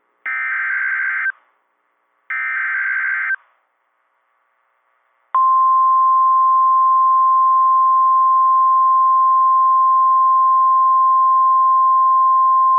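NOAA Weather Radio Emergency Alert System signal: the last two of the three SAME digital header bursts, each about a second of harsh electronic warbling, then after a short gap the single-pitch 1050-hertz warning alarm tone starts and holds steady. It marks the start of a new warning broadcast.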